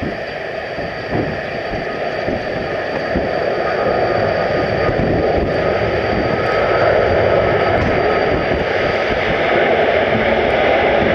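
Boeing 777-300 airliner's jet engines at go-around power, growing steadily louder, with a steady high tone over the rumble. Wind buffets the microphone near the start.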